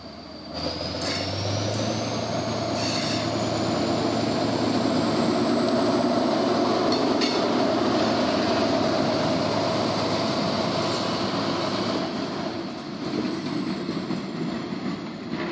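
NS 2400-class diesel-electric locomotive passing close by, hauling passenger coaches. Its diesel engine runs loud, with a high whine that climbs about half a second in and falls away after about twelve seconds, as the coaches' wheels roll past over the rails.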